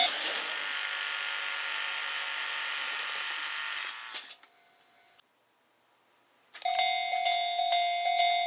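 Level-crossing warning bell. Its ringing gives way to about four seconds of steady hissing noise, which fades to near silence. About two-thirds of the way in, the bell starts again with a steady, evenly repeating ding.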